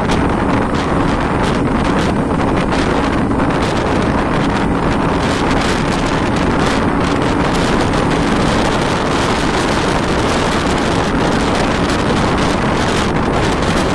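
Moving bus heard from an open window: wind buffeting the microphone over the steady drone of the bus engine and road noise.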